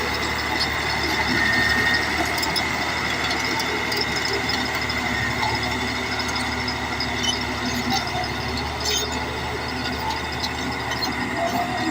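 Caterpillar D8 crawler bulldozer working: a steady diesel engine drone with a high whine over it, and the clatter of its steel tracks.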